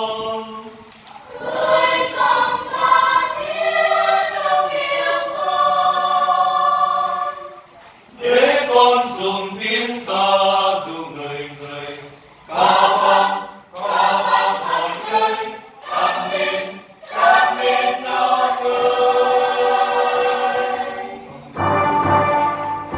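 Mixed church choir of men and women singing a Vietnamese hymn in rehearsal, in sung phrases of a few seconds each with brief breaks between them.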